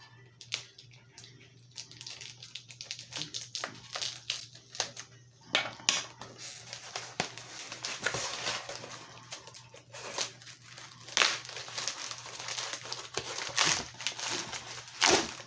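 Cardboard mailer package being opened by hand: irregular crinkling, scraping and sharp snaps of cardboard and packing material. It grows busier a few seconds in, with the loudest snaps near the end.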